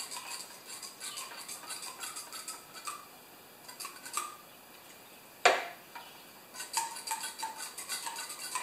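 Light metallic clicks and ticks from work on a lawnmower engine, with one sharp knock about five and a half seconds in and a quick run of clicks near the end.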